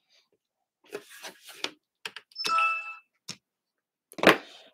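Scattered clicks and knocks of hands working on an opened laptop, with a brief ringing tone a little past the middle and a sharper knock near the end.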